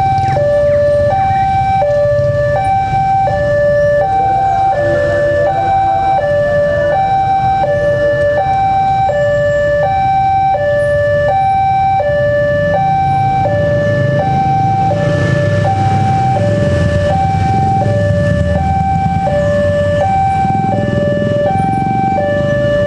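Two railway level-crossing alarms sounding together, an electronic two-tone chime alternating high and low about once a second. Idling motorcycle and traffic engines rumble underneath, louder past the middle.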